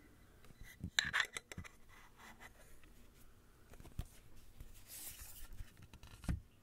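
Small clicks and scraping as a lens cap is fitted onto the lens hood of a Leica Q camera and the camera is handled, with a cluster of clicks about a second in, a rubbing rustle later and a knock near the end.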